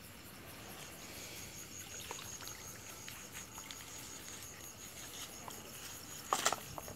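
Night insects (crickets) chirping faintly: a steady, high, rapidly pulsing trill. A brief loud noisy burst comes near the end.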